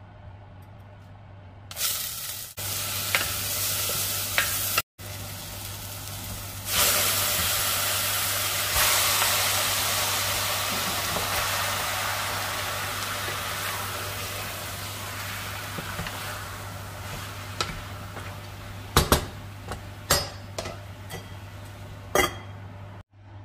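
Food sizzling as it fries in hot oil in a pan. The sizzle comes on strongly about a quarter of the way in and slowly dies down, with a few sharp clinks of a utensil on the pan near the end. A steady low hum runs underneath.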